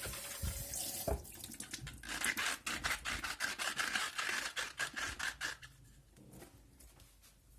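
Tap water running over an apple, then fingers rubbing the rinsed apple's skin in a quick run of squeaks lasting about three and a half seconds, which stop near the end. The squeak is the sign of skin washed clean of its wax coating.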